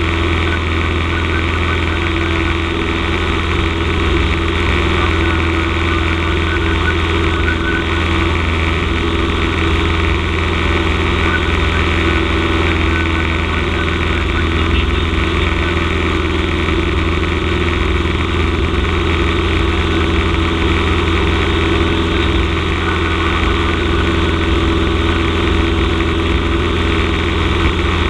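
Cessna 172M's four-cylinder Lycoming engine and propeller running steadily in flight, a constant drone that neither rises nor falls.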